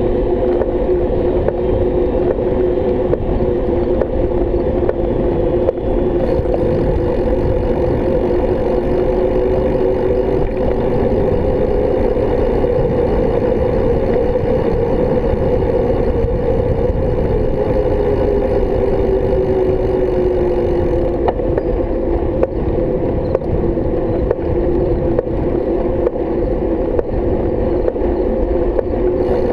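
Steady road and wind rumble from riding along a paved lane, picked up by a bike-mounted GoPro, with a droning hum that drifts slightly in pitch. A faint hiss joins about six seconds in and drops away about two-thirds of the way through.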